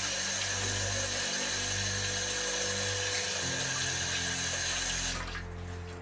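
Water from a tap running steadily over potatoes being rinsed by hand, dropping off about five seconds in.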